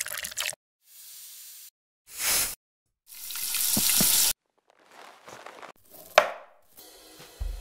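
A string of separate kitchen sound effects: a pour and light glass clinks, then vegetables sizzling as they are tossed in a pan over a gas flame, the loudest, swelling for about a second, then a knife cutting through roast meat with a sharp tap.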